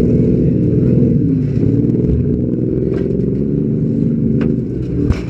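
Demolition derby car engine idling loudly and a little unevenly, with an occasional faint click and one sharp knock about five seconds in.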